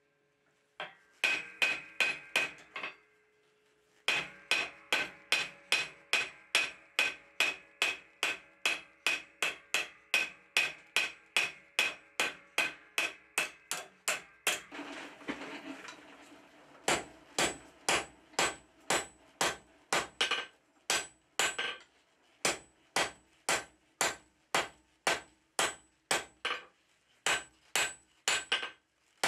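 Hand hammer forging hot steel on an anvil block, in steady runs of about two to three blows a second, each blow ringing, broken by a few short pauses. The smith is hammering a bevel into the top face of a steel handle.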